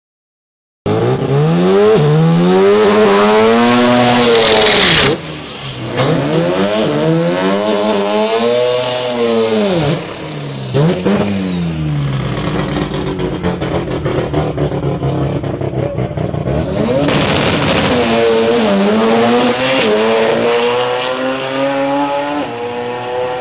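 Mazda RX-7 drag car's engine revving hard in repeated sweeps, pitch climbing and falling several times, then running lower and steadier before revving again. Near the end it pulls away down the track, its pitch rising steadily under acceleration.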